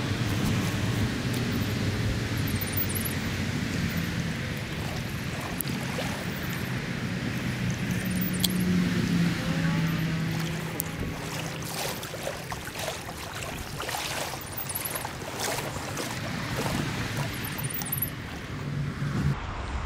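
Small stream flowing, with wind buffeting the microphone and a low steady hum underneath. Brushing and clicking sounds come in the second half.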